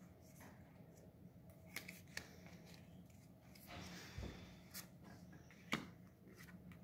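Faint handling of Pokémon trading cards: cards flicked through in the hand and laid down on a playmat, giving a few soft clicks and a short slide a little before the middle. The sharpest tap comes near the end.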